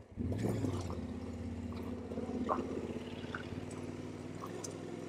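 Yamaha Ténéré 700's parallel-twin engine running steadily at low revs, its note coming in sharply just after the start, with a few faint ticks and rattles over it.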